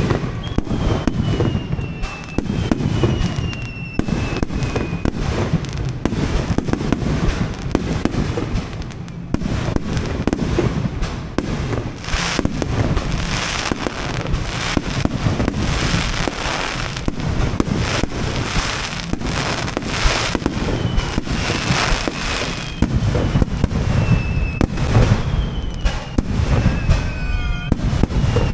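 A fireworks display: aerial shells bursting one after another in booms and dense crackling, with no break. Thin falling whistles sound at the start and again near the end.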